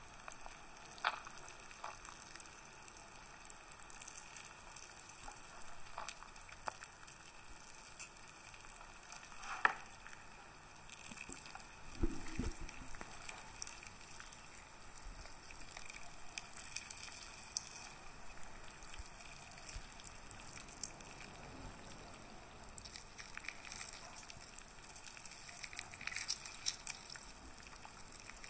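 Fingers squeezing and digging into the pulp of halved pink grapefruits: a steady wet crackling and squishing of the bursting juice sacs, with scattered small crackles and one dull knock about twelve seconds in.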